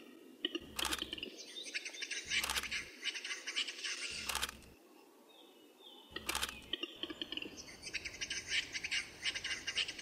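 Male western capercaillie display song: two runs of fast, dry scraping strokes a few seconds long, the grinding 'whetting' phase of the lek song, with several sharp clicks among them.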